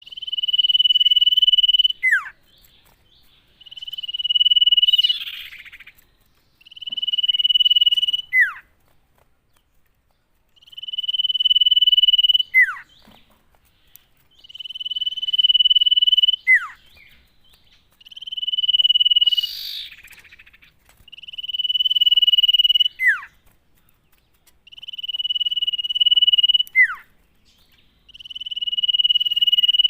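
Common iora singing: a long, steady high whistle held for about two seconds that ends in a quick downward slur. The phrase repeats nine times, about every three and a half seconds.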